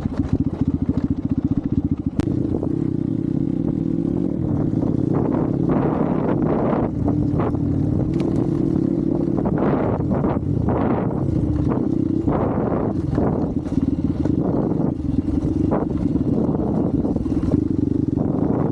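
Hero XPulse 200's single-cylinder engine running steadily as the bike is ridden over rough ground, with repeated knocks and clatter over the engine sound.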